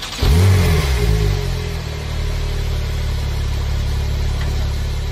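A motor vehicle's engine revs up and back down about a third of a second in, then runs on steadily at an even low pitch.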